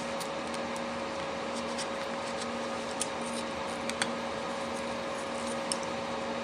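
Faint, sparse clicks of a small screwdriver tip working tiny phone screws, over a steady electrical hum with two held tones.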